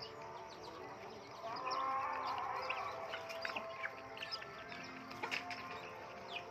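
Chickens calling as they feed: many short, high peeps from the young birds, with a louder run of calls from about one and a half to three seconds in.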